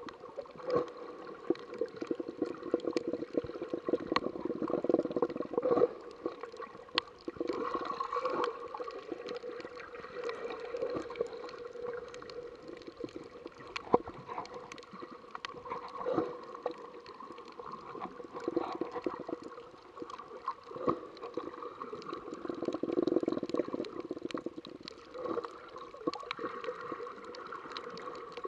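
Muffled underwater water noise heard through an action camera held just below the surface: sloshing and gurgling that swells and fades, with scattered sharp clicks and a faint steady whine.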